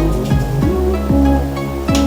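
Background music with a deep bass line whose notes repeatedly slide down in pitch.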